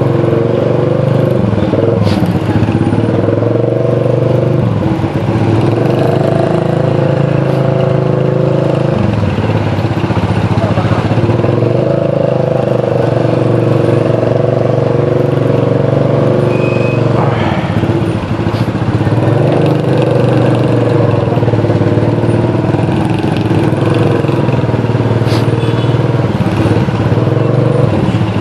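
Motorcycle engine running steadily while riding. Its pitch drops and comes back up several times as the throttle is eased off and opened again.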